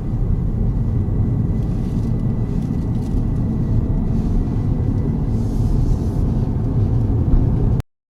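Toyota GR Yaris on the move: a steady low rumble of engine and road noise that cuts off abruptly near the end.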